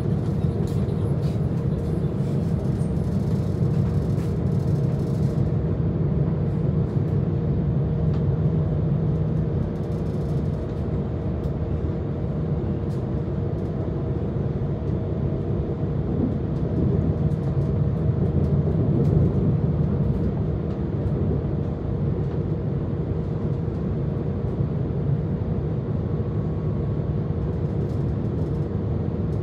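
DB class 442 Talent 2 electric multiple unit running along the line, a steady rolling rumble with a constant hum over it, heard from inside the train.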